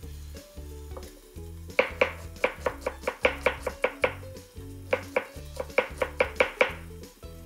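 Kitchen knife mincing onion and garlic on a cutting board: two runs of quick chopping strokes, about five a second, starting about two seconds in with a short pause between. Background music plays throughout.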